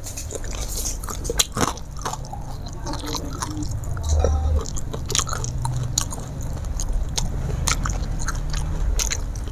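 A person chewing a mouthful of food close to the microphone, with many short crunches and mouth clicks spread through it.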